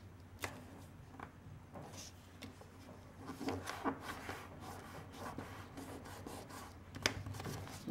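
Glue stick rubbed back and forth over a paper flap: a faint, grainy rubbing that runs for several seconds, after a few small clicks and paper-handling sounds early on and ending in a click.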